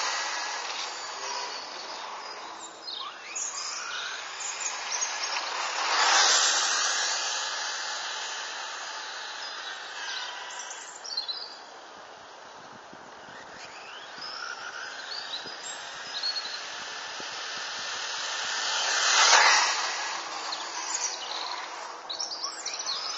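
Kyosho Ultima DB RC buggy with a brushless motor running on asphalt: a high whine that rises and falls with the throttle, getting loud as the car passes close at the very start, about six seconds in and again about nineteen seconds in, with fainter runs in between.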